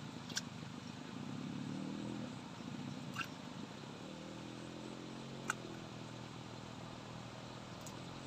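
A small engine running steadily at a distance, its pitch shifting up and down, with four short sharp clicks over it.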